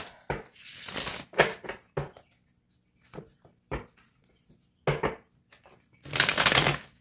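A deck of tarot cards being shuffled and handled: several short rustling bursts of cards sliding together, with light taps and flicks between them, the longest and loudest near the end.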